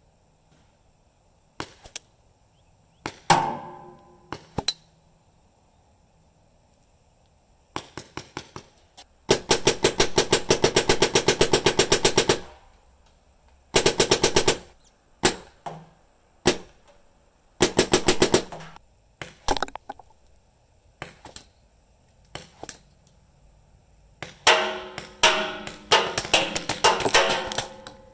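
Paintball markers firing: scattered single shots, then rapid strings of about ten shots a second, the longest lasting about three seconds, with another run of strings near the end.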